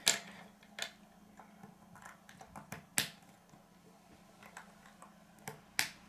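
Small Lego plastic pieces being handled and pressed together on a wooden table: scattered sharp clicks and taps, about six in all, the loudest about three seconds in, over a faint steady hum.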